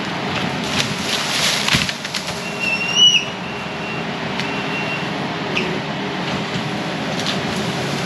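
Kubota compact track loader's diesel engine running steadily as it pushes through brush and fallen limbs, with wood cracking and snapping in the first couple of seconds. A brief high squeal sounds about three seconds in.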